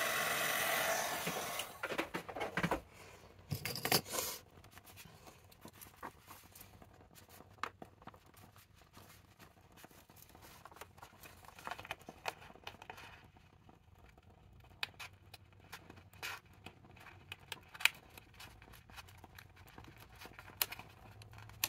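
Paper being handled while crafting: a loud rustle of paper in the first two seconds, then quieter scattered rustles and light taps of paper and small tools being set down.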